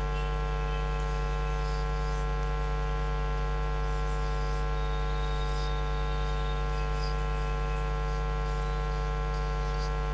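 Steady electrical mains hum in the recording's audio chain, a constant low buzz with many overtones. Faint short squeaks of a marker writing on a whiteboard sound through it now and then.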